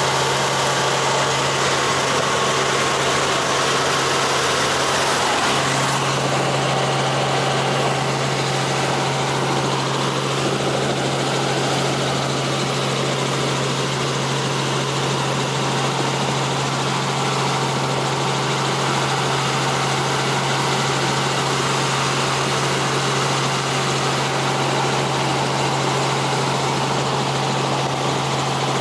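Steady helicopter cabin noise in flight: the rotor and engine drone as a constant low hum under a loud even hiss. About six seconds in, the hiss above thins and the low hum grows stronger.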